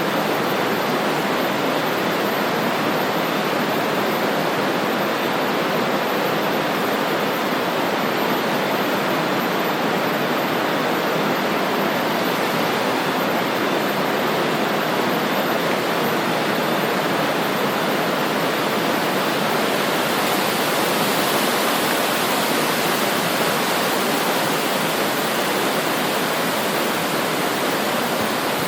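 Swift river water rushing over its bed in a steady, dense rush. The higher part of the hiss grows brighter about two-thirds of the way through.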